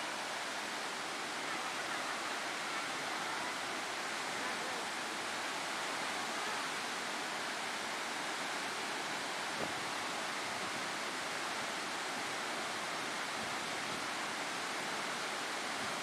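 A large waterfall pouring down a rock face: a steady, even rush of falling water.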